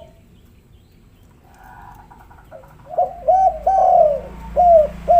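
Spotted dove cooing. After a quiet start and a faint call, a run of short, arched coos begins about three seconds in, with one longer drawn-out note among them.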